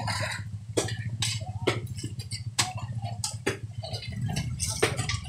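Metal shovels striking and scraping rocks and gravel, irregular sharp knocks and clinks about two a second, over a steady low rumble.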